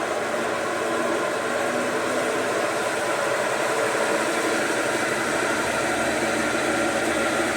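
Consul CWC 10 washing machine running with a steady mechanical drone and hum. The noise is taken as a sign that the machine's mechanical assembly (transmission) is worn and needs replacing.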